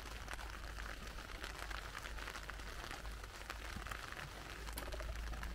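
Rain falling steadily on a tent, heard from inside: a dense patter of small drop taps over a continuous hiss.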